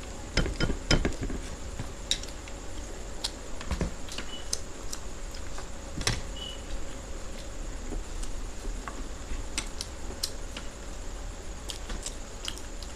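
Two people eating puffed rice mixed with pea curry by hand: fingers scooping it on plates and chewing make scattered small clicks and smacks, with a cluster of louder ones in the first second. A faint steady hum runs underneath.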